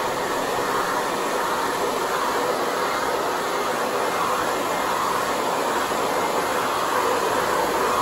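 AGARO 2000-watt hair dryer running with its diffuser attachment fitted, giving a steady rush of blown air and motor noise.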